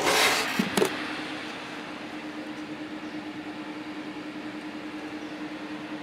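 Two small cooling fans on a 12 V Peltier cooler module running with a steady hum and a low tone. At the start, a short scraping noise and two light knocks.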